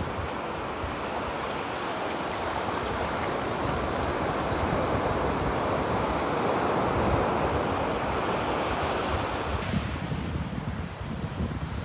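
Ocean surf washing onto a beach: a rush of breaking waves that swells toward the middle and recedes near the end, over a low rumble of wind on the microphone.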